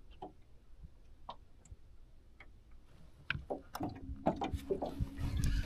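Scattered light clicks and taps from handling a spinning rod and reel in an aluminium jon boat, sparse at first and more frequent in the second half. A faint steady hum comes in about two-thirds of the way through.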